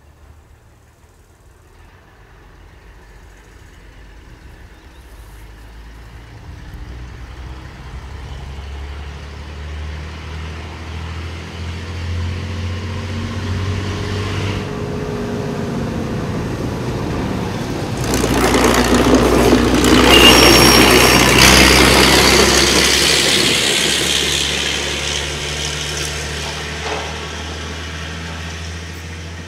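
Uerdingen railbus (DB VT 98 with VS 98 trailer) approaching and passing, its underfloor diesel engines running. It grows steadily louder as it nears and is loudest with a broad rushing rumble as it goes by, about 18 to 24 seconds in, then fades as it draws away.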